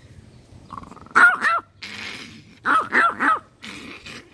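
Small chihuahua barking angrily in short yappy bursts: two barks about a second in, then three more in quick succession around three seconds.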